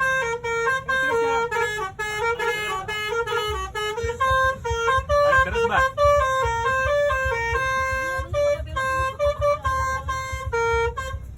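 Basuri (telolet) bus horn playing a tune in short, stepped notes, several horn tones sounding together, over a low rumble. The tune stops just before the end.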